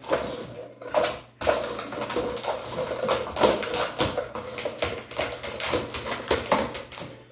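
Hard plastic ball-track puzzle toy clacking and rattling on a wooden floor as an Australian shepherd puppy paws at it: an irregular run of sharp knocks and scrapes.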